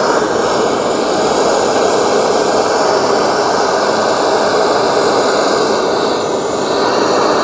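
Handheld gas torch burning with a steady, continuous rushing hiss of the flame, held against an onion to char it.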